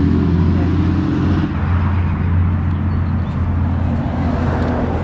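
An engine running steadily with a low, even drone, and a broad rushing noise swelling and fading in the middle.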